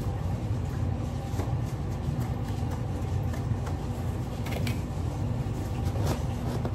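A steady low rumble throughout, with a few faint scrapes and crunches as a plastic measuring cup scoops packed snow from one bowl and tips it into another.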